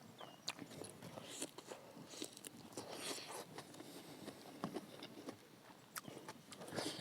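Faint close-up eating sounds: a person chewing food, with soft mouth smacks and small clicks at irregular intervals.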